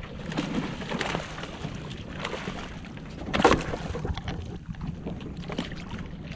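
A hooked fish splashing and thrashing against the side of a small fishing boat as it is hauled aboard, with a loud thump about three and a half seconds in as it comes over the gunwale into the hold.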